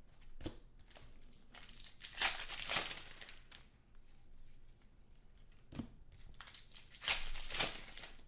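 Foil trading-card pack wrappers crinkling and tearing as packs are opened and the cards handled, in short noisy bursts, loudest about two seconds in and again near the end.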